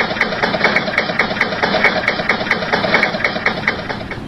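An engine-driven machine running steadily with a sharp, regular knock about five times a second.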